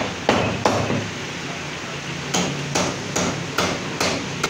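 Heavy chopping blows on a goat's head on a wooden chopping block, struck with a meat cleaver. There are three sharp chops in the first second, a pause of about a second, then a steady run of about five more, a little over two a second.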